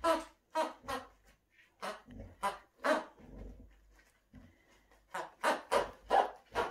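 Basset hound making a run of short barks and grunts while worrying a toy duck. The sounds come in quick succession, pause briefly after the middle, then come faster near the end.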